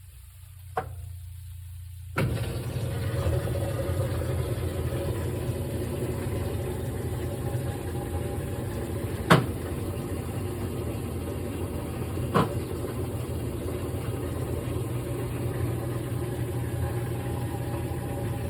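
GE top-load washing machine's motor starts up suddenly about two seconds in, after a click, and then runs steadily with the washer working a heavy comforter load. Two sharp knocks sound later in the run.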